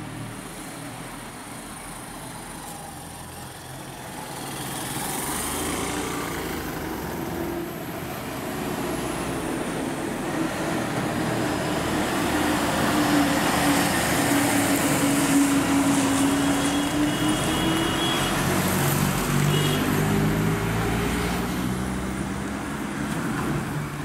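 A KSRTC bus's diesel engine labouring around a hairpin bend, growing louder as it comes around and passes, then easing off as it pulls away. Its engine note drops in the middle of the turn and climbs again afterwards. Earlier on, a motorcycle engine is heard passing.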